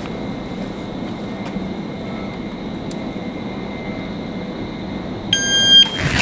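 Electronic shot timer sounding its start beep: one loud, steady high tone about half a second long near the end, over a steady background rumble with a faint high whine.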